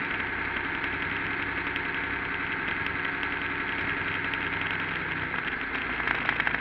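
Engine of the burnout car idling steadily as the car creeps along slowly, heard up close through a camera mounted on the car.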